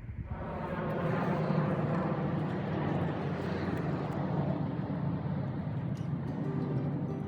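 A vehicle running with a steady rumble and low hum, swelling in over the first second.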